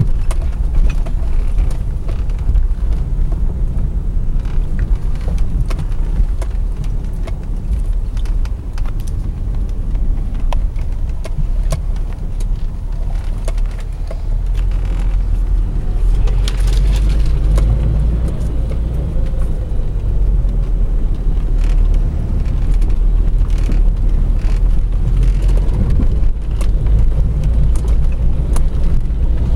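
Jeep Grand Cherokee driving over a rough off-road trail: a steady low rumble with frequent clicks and knocks scattered through it, growing a little louder about halfway through.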